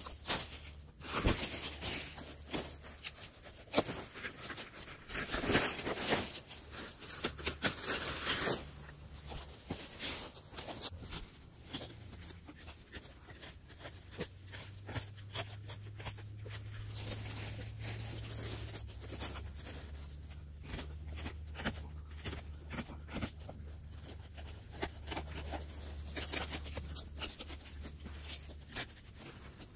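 A knife cutting and prying into the fibrous boot of a sabal palm, with dry fronds and palm fibre crackling and tearing. For the first several seconds the rustling is loud and uneven. After that it turns into a quieter, steady run of small scraping and snapping clicks as the blade works at the fibres.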